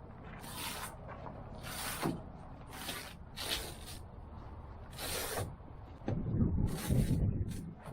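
Nylon and vinyl rustling as a truck bed tent and air mattress are handled, in about six short, irregular swishes, with a run of low thuds and bumps in the last two seconds.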